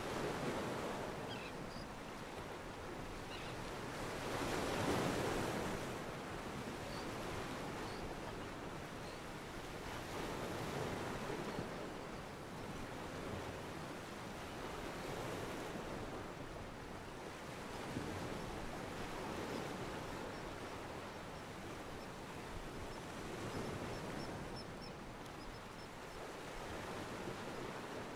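Ocean waves washing against a pier, a stock sound-effect recording. The wash rises and falls in swells every few seconds, the loudest about five seconds in.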